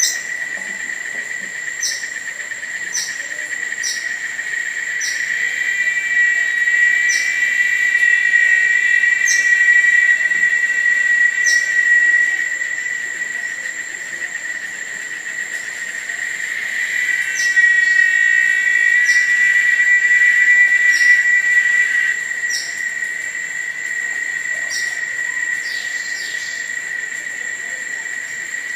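Tropical forest insect chorus: a steady, high-pitched drone with a fainter, higher tone above it, swelling louder twice. Short, descending chirps repeat about once a second over it.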